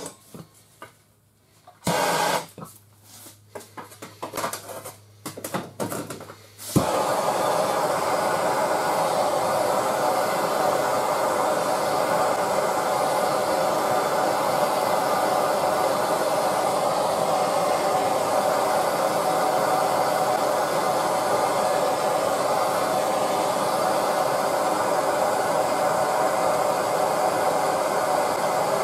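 A few seconds of scattered handling noises, then about a quarter of the way in a Bernzomatic TS8000 hand torch lights suddenly and burns with a steady flame noise while heating the kinked steel frame rail.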